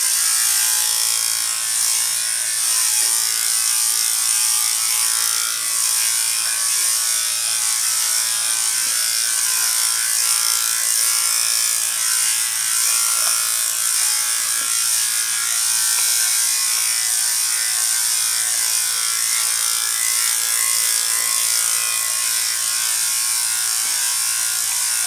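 Electric dog-grooming clipper fitted with an attachment comb, running steadily as it is pushed through a Shih Tzu's coat: a constant hum with a high, buzzing whine.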